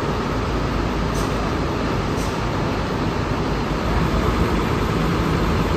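Heavy bus engine running, with a steady low rumble.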